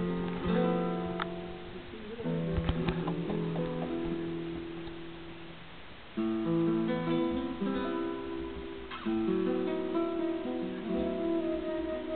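Live acoustic guitar picked and strummed, with a transverse flute playing long held notes: an instrumental passage between sung lines. The music eases off about two seconds in and comes back in fuller about six seconds in.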